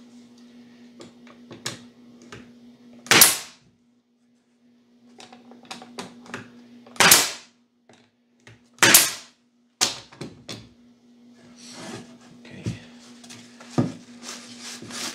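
Pneumatic stapler firing three times into wooden beehive frame parts, each shot a sharp crack that dies away quickly. Lighter knocks of the wood being handled come between the shots, and rubbing near the end.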